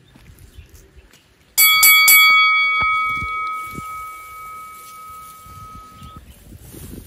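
A bell ringing: three quick strokes about one and a half seconds in, then the ring fading away over about four seconds.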